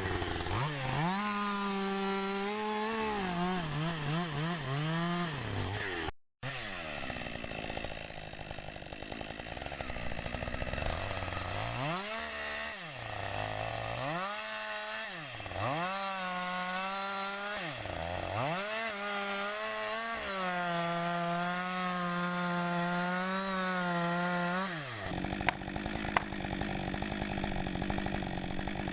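Chainsaw engine at high throttle, its pitch dipping and climbing again and again as it revs and cuts into wood, with a brief break about six seconds in. Near the end the engine note gives way to a steadier noise with two sharp knocks.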